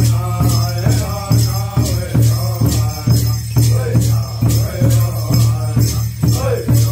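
Hopi social dance song: men chanting in unison over a large double-headed drum beaten steadily about twice a second, with bells and rattles on the dancers jingling in time.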